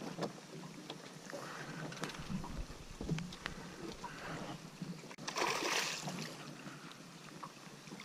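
Fishing reel being cranked against a hooked barramundi, with faint clicks and water lapping at an aluminium boat hull, and a brief splashing rush about five seconds in.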